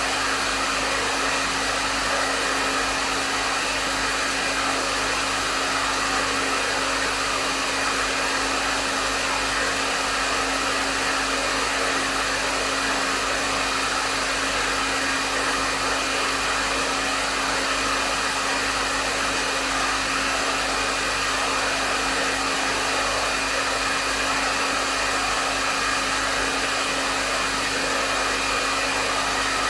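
Hair dryer blowing steadily on a medium setting: an even rush of airflow with a constant motor hum underneath, unchanging throughout.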